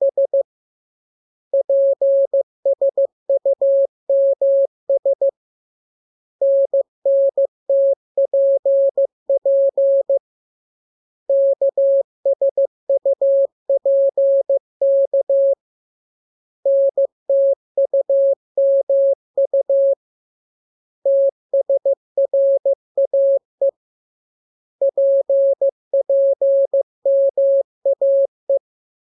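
Morse code sent as a single steady beep tone, keyed in quick dots and dashes. The characters come in six groups with a pause of about a second between them, like a practice radiogram in the lesson's letters K, M, U, R, E, S, N, A, P and T.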